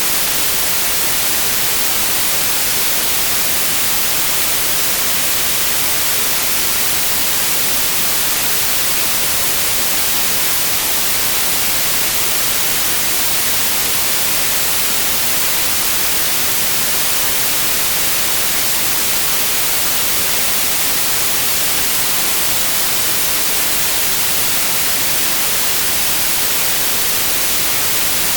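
Steady white noise: an even, unchanging hiss across the whole range, brightest in the highs.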